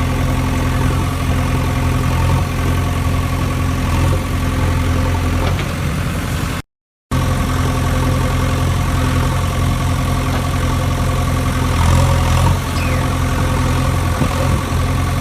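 Engine idling steadily, with a low, even hum. About seven seconds in the sound cuts out completely for a split second, then resumes unchanged.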